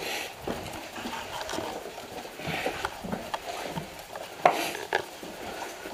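Irregular knocks and clatter of movement, with two sharper knocks about half a second apart near the end.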